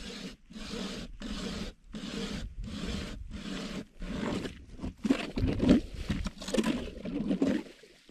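Hand ice auger boring through lake ice: a rhythmic scraping, one stroke with each turn of the crank, about one and a half strokes a second. It grows louder and rougher from about five seconds in.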